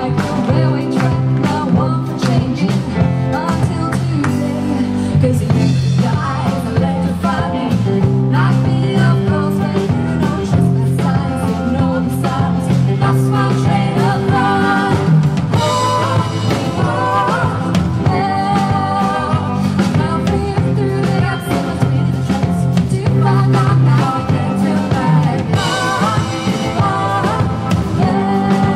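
A live band playing: a woman singing lead over electric guitar, bass guitar and a drum kit, with a second woman singing backing vocals.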